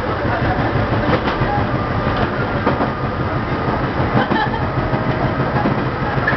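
Fuji Kyuko electric train running along the track, heard from the driver's cab: a steady rumble of wheels on rail with a low hum and a few scattered clicks.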